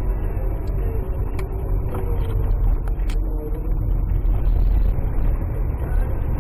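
Car driving along a road, heard from inside the cabin: a steady low engine and road rumble, with a couple of short clicks about a second and three seconds in.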